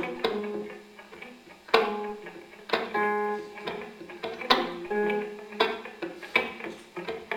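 Electric guitar quartet playing sparse plucked notes and chords, each with a sharp attack that rings on. Brighter clusters of notes sound about three and five seconds in.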